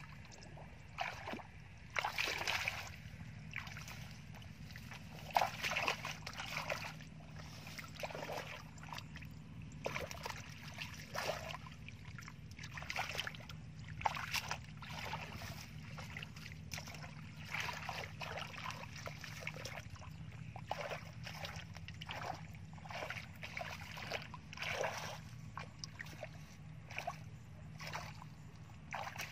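Shallow water splashing and sloshing in irregular strokes as a person wades and scoops along the bottom with a plastic basket, over a steady low hum.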